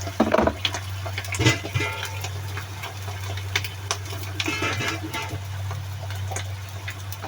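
Scattered clicks and short scrapes of a spoon against the cooking pan and seasoning containers, over a steady low hum.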